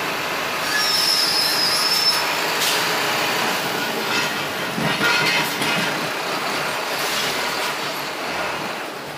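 Vehicle running slowly in street traffic, a steady rumbling road noise with rattles. A high squeal is heard for about a second near the start.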